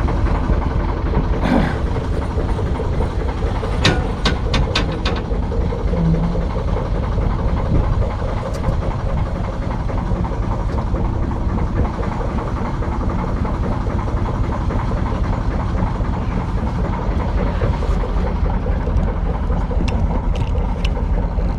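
Narrowboat diesel engine running steadily with a low rumble, with a few sharp clicks about four seconds in and again near the end.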